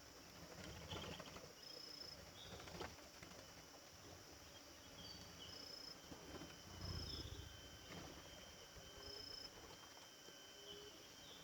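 Faint outdoor ambience with animal calls: short, high, steady whistled notes repeating every second or few, among a few lower short notes and chirps.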